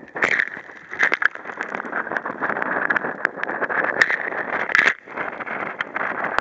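Water rushing and splashing along a Hobie catamaran's hull as it sails fast, with spray coming over the hull and droplets ticking onto the camera. Wind buffets the microphone, and the rush dips briefly a couple of times.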